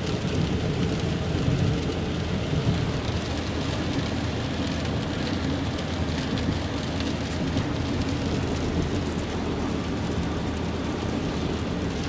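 Steady cabin noise inside a car on the road: a low engine and road noise with an even hiss above it.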